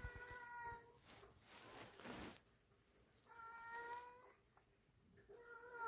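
A domestic cat meowing: two drawn-out meows, each nearly a second long and holding a fairly steady pitch, about three seconds apart, with a third starting near the end. A brief burst of noise comes between the first two.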